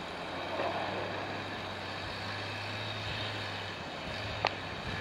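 Engine of a lifted Jeep Cherokee XJ running at a steady pitch as it drives slowly through snow, with one sharp click near the end.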